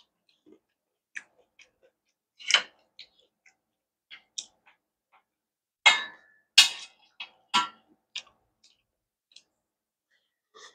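Close-miked eating: a wooden spoon and chopsticks tapping and scraping stainless steel bowls, with chewing and mouth sounds. The sounds come as scattered short clicks, with a louder run of them a little past the middle.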